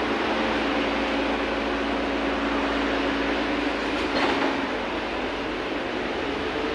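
VMZ-100 trolleybus cabin on the move: steady running and road noise with a thin motor whine that rises in pitch near the end, and one short knock about four seconds in.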